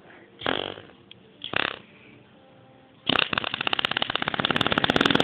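Imitation fart noises made by a person: two short sputters, then from about three seconds in a long, loud, rapidly fluttering fart noise.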